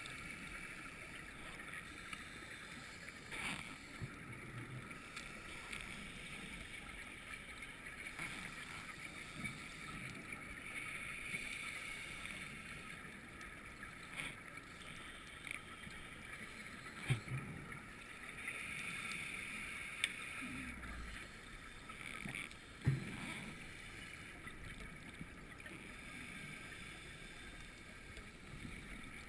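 Underwater ambience on a scuba dive: a steady hiss that swells now and then, with scattered clicks and knocks.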